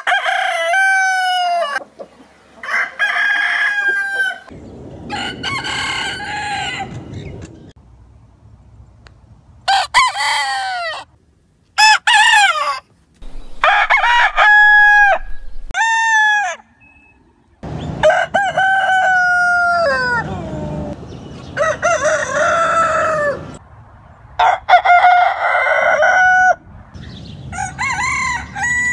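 Several different roosters crowing in turn, about ten crows in all. Each crow lasts one to three seconds, rising at the start, holding, then dropping at the end, with short gaps between crows.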